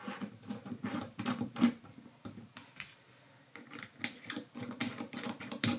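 Small metal clicks and ticks from a steel rod being worked in the top fitting of a quick change tool post, an irregular run of light taps with a short pause about halfway through.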